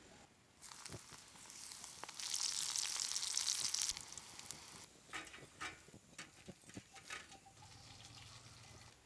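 Breaded mushroom strips deep-frying in hot oil. The sizzle builds and is loudest from about two to four seconds in, then gives way to separate crackles and pops that thin out near the end.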